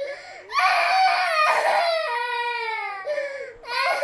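High-pitched crying: one long wail that slides slowly down in pitch over about three seconds, then a short catch of breath and a new wail starting near the end.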